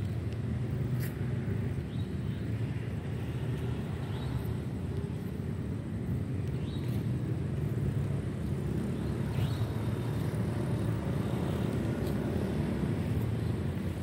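Distant road traffic: a steady low rumble, with a few faint, short rising chirps above it.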